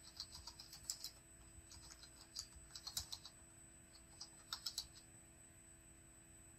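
Faint computer keyboard typing: quick runs of keystrokes that stop about five seconds in.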